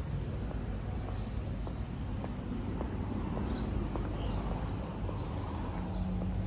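Outdoor background noise with a steady low hum under an even hiss, like distant traffic. Faint footsteps tick about every two-thirds of a second, and a few faint high chirps sound now and then.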